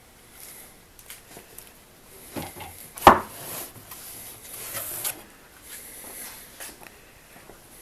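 Handling noises on a wooden phonograph cabinet: rubbing and scraping, with one sharp knock about three seconds in and a few lighter clicks.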